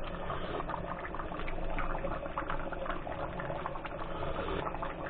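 A pot of soup bubbling on the stove as it keeps cooking: a steady crackle of small popping bubbles.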